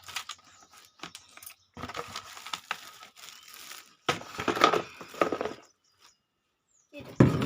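Packaging rustling and crinkling as it is handled, in several irregular bursts with short pauses between them.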